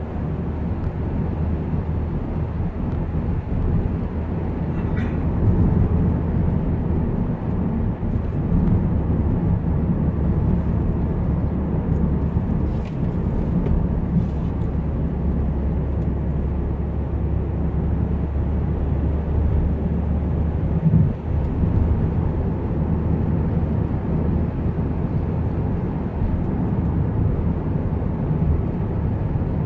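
Volkswagen Transporter T6 van driving at a steady pace, heard from inside the cabin: a steady low engine and road rumble.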